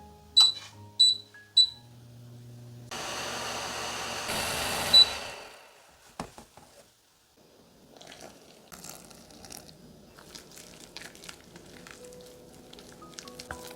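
Three quick electronic beeps about half a second apart, like a kitchen appliance's control panel being pressed. Then comes about two seconds of rushing noise that ends with another beep, followed by faint crackling and light clicks.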